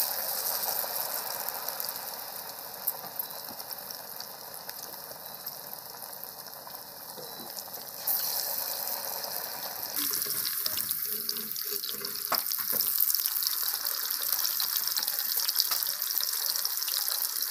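Hot oil sizzling steadily in a kadai as bottle gourd pakoras deep-fry. The sizzle grows louder about eight seconds in and again near ten seconds as more battered pieces go into the oil, with a few clicks of a metal ladle against the pan.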